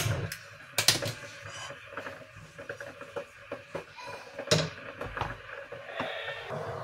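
Sharp clicks of a long gas lighter as a hob burner is lit, then a wooden spatula scraping and knocking in a non-stick wok as minced meat is stirred.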